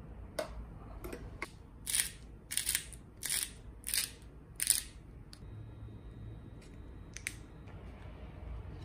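Hand-twisted spice grinder grinding cinnamon: five crunchy grinding twists about two-thirds of a second apart, after a few light clicks.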